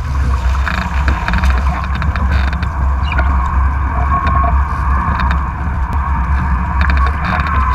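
Wind buffeting the microphone of a camera mounted on a Moth Mach 2 foiling dinghy, over water rushing past as the boat sails fast, with a faint steady whine and scattered spray ticks.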